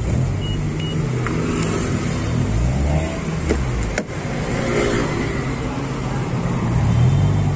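Road traffic passing close by, its engine rumble rising and falling, with two short high beeps near the start. A sharp click about four seconds in comes as a car door is unlatched and swung open.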